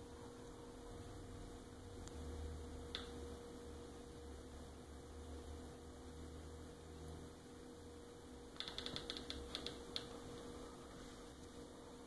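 Faint steady hum. A low rumble rises for a few seconds in the middle, and a quick run of soft clicks comes near the end.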